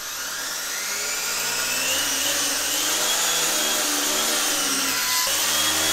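Arrma Kraton EXB monster truck on 8S, wheels spinning freely off the ground: its Spektrum Firma 1250kv brushless motor and drivetrain wind up into a high whine over the first couple of seconds, then hold at high speed, with a steady rushing noise under the whine.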